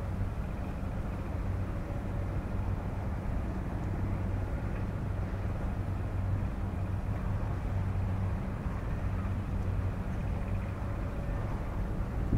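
Heavy diesel engine of construction machinery, most likely an excavator, running at a steady speed with an even low hum.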